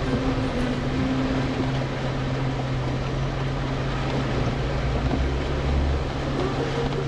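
Jeep engine running with a steady low drone under an even wash of tyre and wind noise.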